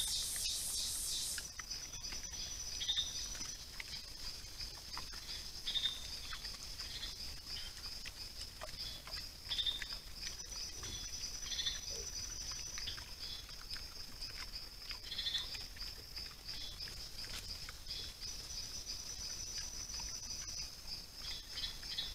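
Night-time forest ambience: a steady high-pitched insect chorus, with a rapid pulsing trill that starts and stops every few seconds and short chirping calls every few seconds. Music ends about a second and a half in.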